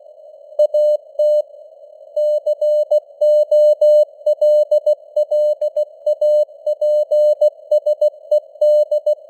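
Morse code (CW) at 16 words per minute: a single tone of about 600 Hz keyed into dots and dashes, with a few longer gaps between words. A narrow band of simulated radio-noise hiss sits around the tone.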